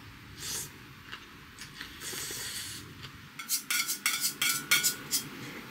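Ramen noodles and broth slurped from a stainless steel cup, then a quick run of sharp, ringing metallic clinks in the second half as a utensil knocks against the steel cup.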